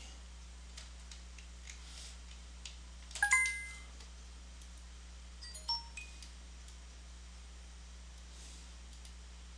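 Computer message-notification chime: a short cluster of bright ringing tones about three seconds in, then a second, shorter chime a couple of seconds later.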